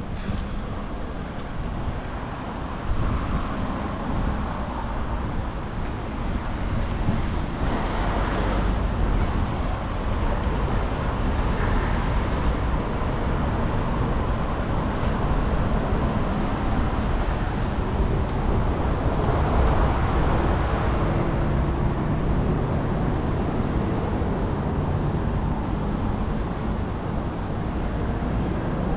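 City street traffic: motor vehicles passing, a steady low rumble that swells several times as vehicles go by close.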